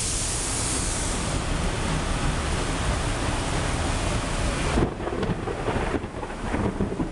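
Heavy downpour and a Metro-North electric multiple-unit train rolling past, blending into a steady rushing hiss. From about five seconds in, wind buffets the microphone.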